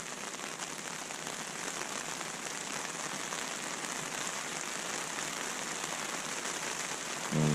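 Heavy rain pouring down hard: a steady, even hiss of downpour.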